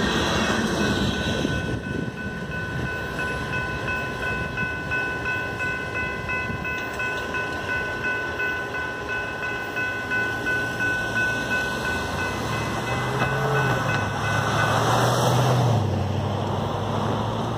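The last freight cars roll over the grade crossing at the start while the crossing bell rings with a steady, even beat. The bell keeps ringing as the gate arms lift and stops shortly before the end, while a car drives across the tracks.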